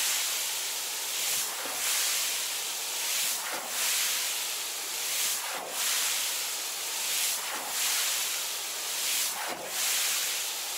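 Water hose spraying onto a car during a wash: a steady hiss that swells and eases about every two seconds.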